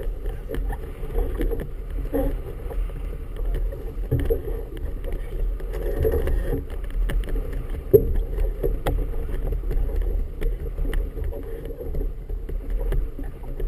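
Wind buffeting the microphone and choppy water slapping against the hull of a boat riding at a mooring, with irregular knocks; the sharpest knock comes about eight seconds in.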